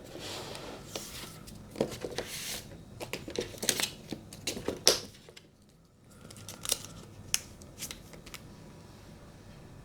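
Cardboard packaging and a paper card being handled: rustling with scattered light taps and clicks as the card is taken out of its pocket in the box, with a short quiet pause a little past the middle.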